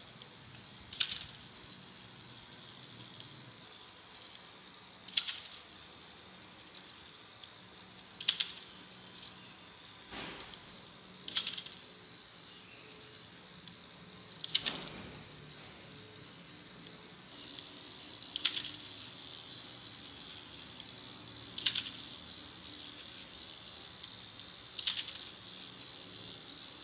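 Battery-powered Takara Tomy ZW01 Wild Liger toy running on its motor: a steady gearbox whine, with a short burst of plastic ratcheting clicks about every three seconds as its mechanism cycles.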